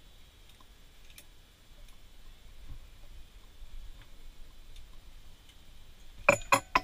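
Mostly quiet shelter room tone with a few faint, scattered ticks, then four sharp clicks in quick succession near the end.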